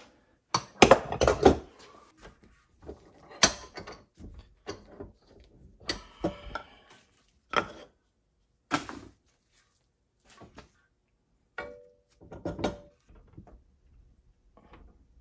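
Separate knocks, clunks and short rattles of a metal part being handled, taken out of a bench vise and clamped back in. The loudest clatter comes about a second in.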